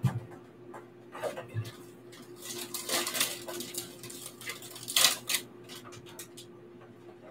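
Kitchen handling sounds: scattered clicks, knocks and rustles as utensils and containers are moved about on a worktable, with a cluster of them a little before the middle and the loudest clatter about five seconds in. A faint steady hum runs underneath.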